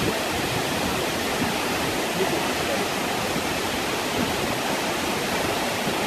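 A tall waterfall's falling water, a steady, even rush.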